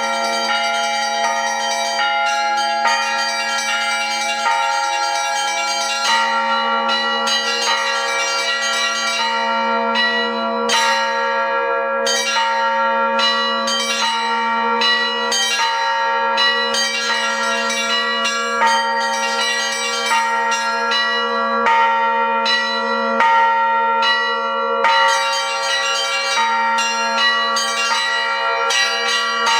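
Russian Orthodox bell ringing (zvon) on thin-walled bells together with thick metal bila, struck in quick succession. The many ringing tones overlap, with a low tone sustained underneath.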